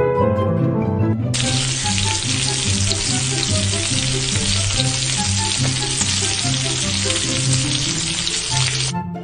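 Background music with a bouncing bass line; about a second in, a loud, steady hiss comes in over it and cuts off suddenly near the end.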